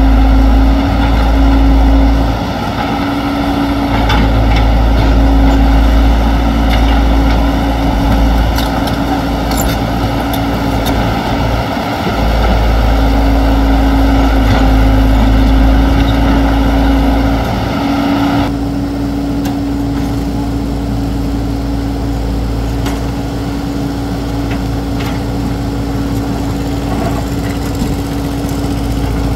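Caterpillar excavator's diesel engine and hydraulics working under load, a deep rumble with a steady hum over it and a few light knocks. About two-thirds of the way through it eases to a lower, steadier running.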